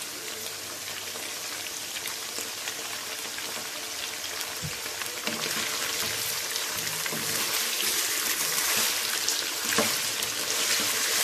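Chicken pieces frying in hot oil in a wok: a steady sizzle with faint crackles that grows louder in the second half as the pieces are turned with a wooden spatula.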